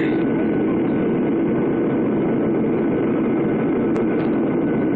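Steady cabin noise of a Boeing 737-800 in flight on its descent, heard from inside the cabin: the even hum of its CFM56 turbofan engines and airflow, with a faint steady high whine.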